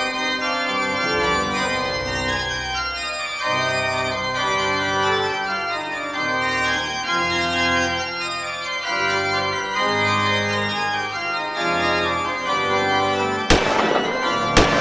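Organ music playing slow, sustained chords that change every second or two. Two pistol shots ring out near the end, about a second apart.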